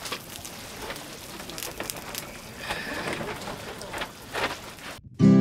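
Pork curry simmering in a kadai over an open wood fire: a steady bubbling, crackling patter with scattered clicks as a ladle stirs through it. Near the end it cuts off suddenly, and acoustic guitar music starts.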